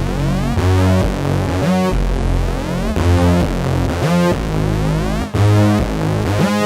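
Electronic background music: synthesizer chords with a rising sweep every two to three seconds.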